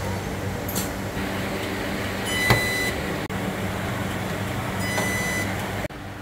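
Body-shop workshop noise: a steady machine hum with three short, sharp sounds, each carrying a brief high beep-like tone, about a second, two and a half and five seconds in.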